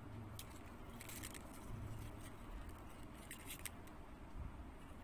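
Faint handling noise from hand beadwork: small beads clicking together and thread rubbing as beads are strung. There are a few soft clicks and scrapes over a low steady hum.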